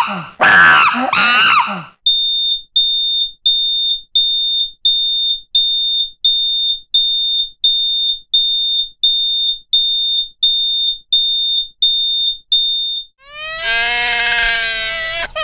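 Smoke alarm sounding: a shrill, piercing beep repeated evenly about one and a half times a second, some sixteen beeps in all. A wavering, voice-like sound ends about two seconds in. Near the end a loud, wailing, cry-like sound begins.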